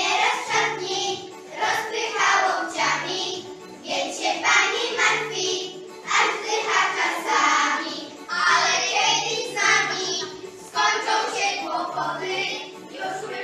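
A class of young children singing together to an instrumental backing track, with short low backing notes repeating under the voices.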